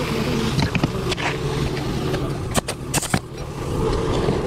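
A steady low motor drone runs under asphalt-shingle roofing work. Several sharp clacks and knocks come about a second in, with a tighter cluster about two and a half to three seconds in.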